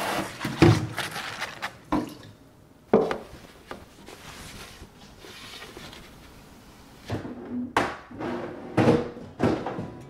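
Tap water running over a plastic fridge shelf as it is washed, stopping after about two seconds. Then scattered knocks and clatters of plastic fridge shelves and drawers being handled, with a dense run of them near the end.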